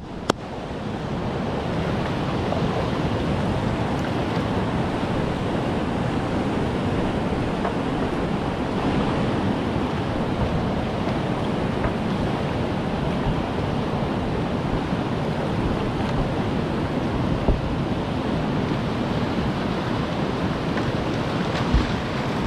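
River rapids running, a steady rush of churning whitewater close to the microphone. A single hand clap sounds just at the start, and there are two brief knocks near the end.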